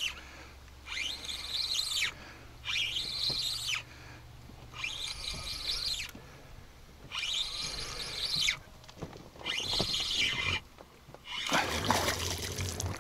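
Spinning reel being cranked in about six short bursts, each a rising-then-falling whir, as a hooked zander is wound in toward the boat. Near the end the fish splashes at the surface.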